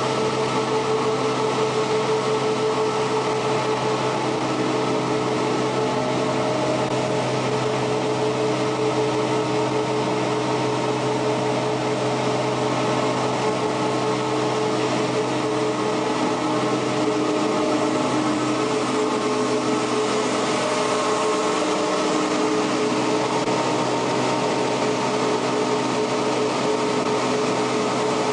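An engine running steadily: a constant drone with several held tones.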